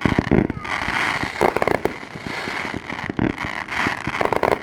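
Aerial fireworks display: overlapping shell bursts with dense crackling and repeated booms. A loud bang comes right at the start, with more heavy bursts about a second and a half in, past three seconds and near the end.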